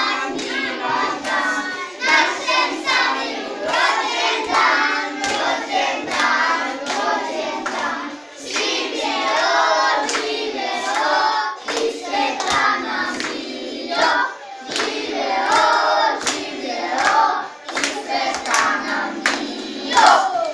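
A group of children singing a birthday song together, clapping along in time about twice a second.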